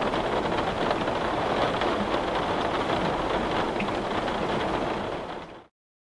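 Steady rain falling, an even hiss that fades quickly and cuts to silence about five and a half seconds in.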